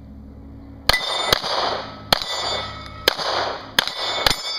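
Handgun firing six shots over about three and a half seconds, the first about a second in, each followed by the clanging ring of a steel target being hit.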